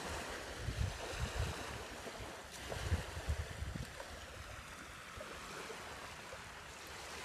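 Small waves washing onto a beach, with irregular wind gusts buffeting the microphone.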